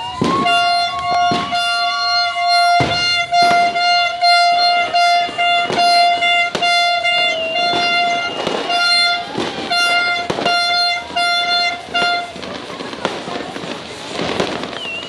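Fireworks and firecrackers banging in quick succession, while a steady horn sounds a long held note that stops about twelve seconds in; after that the bangs go on alone.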